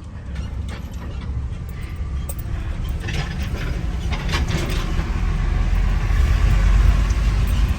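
Car driving along: steady engine and road rumble heard from inside the moving car, growing louder over the last few seconds.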